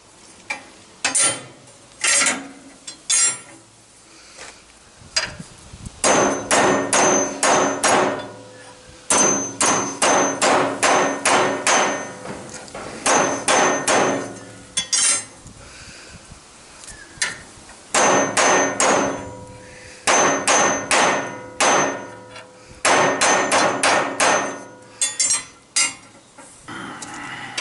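Hammer striking metal: a few spaced blows, then repeated runs of rapid blows about five a second, each run lasting a couple of seconds, with the metal ringing between strikes.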